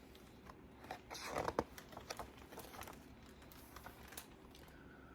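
Pages of a picture book being handled and turned: a short paper rustle about a second in, with a few light clicks and taps after it.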